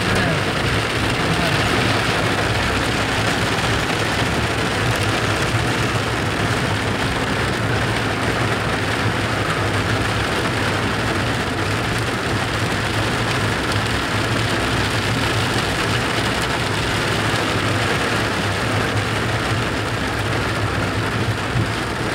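Hail and heavy rain beating on a moving car's roof and windshield, heard from inside the cabin as a steady, dense hiss. A low hum from the car runs underneath.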